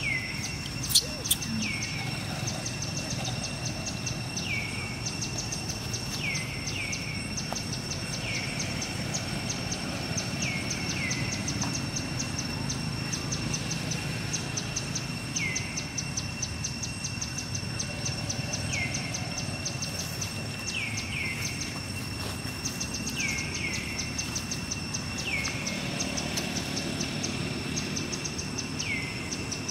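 Outdoor ambience: insects drone steadily at a high pitch with a fast ticking pulse. A short falling call repeats every one to three seconds over a low background rumble.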